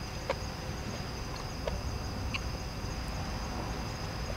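Crickets chirping steadily in a continuous high drone, over a low steady rumble, with a few faint light clicks.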